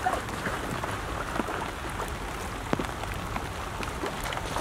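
Steady rain falling on shallow floodwater and grass: an even patter with scattered sharp drop ticks.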